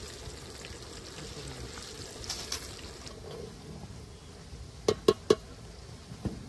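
Onions and dried red chillies frying in sesame oil in a pot over a wood fire, a steady sizzle. About five seconds in come three sharp knocks in quick succession, and one more near the end.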